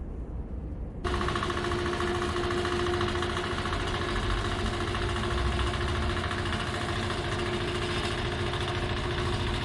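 An engine running steadily, cutting in abruptly about a second in; before that, only a low rumble.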